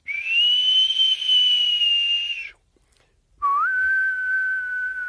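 A man whistling through pursed lips: two long held notes. The first is high and nearly steady for about two and a half seconds; after a short pause a lower note starts with a small upward slide and then holds, sinking slightly.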